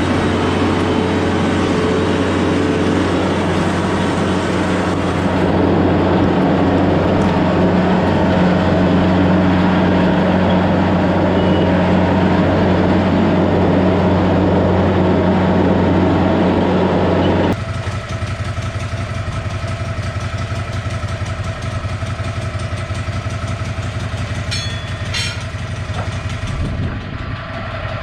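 Tractor's diesel engine running steadily under load. A little past halfway it changes abruptly to a quieter, lower-toned running.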